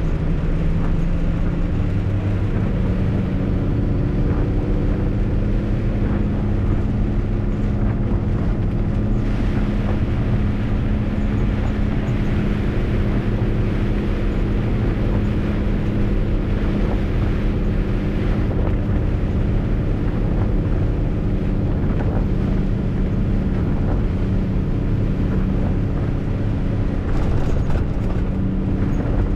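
MAN truck's diesel engine running steadily as the truck drives, over a steady hiss of wet-road and rain noise.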